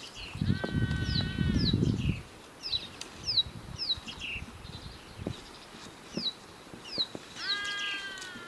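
Birds calling in forest: a short high chirp that falls in pitch, repeated every half second to a second, and twice a longer whistled call held on one note and dipping at its end. A low rustle is loudest in the first two seconds.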